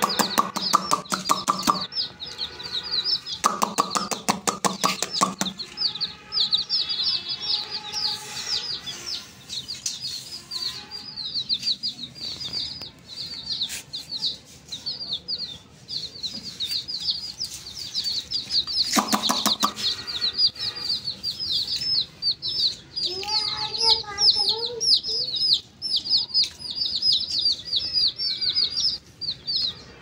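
Chicken chicks peeping continuously, many short high chirps a second. Louder, lower, buzzier sounds come in at the start, again around four seconds and briefly near the middle.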